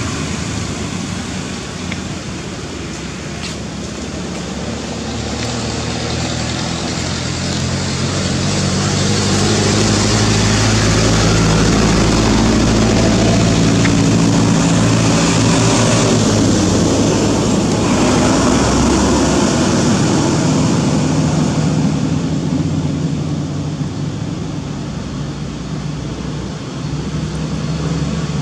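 Road traffic: vehicle engines and tyre noise running steadily. It swells as vehicles draw near through the middle, eases off, then rises again near the end.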